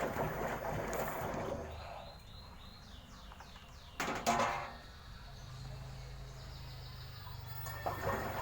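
Samsung Eco Bubble inverter washing machine running under test: a rush of water, a sharp knock about four seconds in, then a low steady hum, with the water rush coming back near the end.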